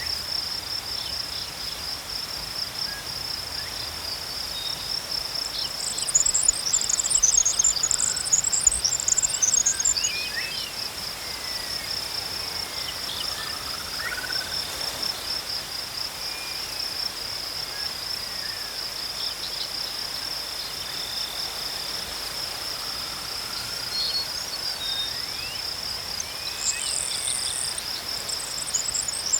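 Crickets chirping in a steady, fast pulsing trill. A second, higher and louder chirping chorus joins about six seconds in for a few seconds and again near the end, with a few faint sliding whistles in the background.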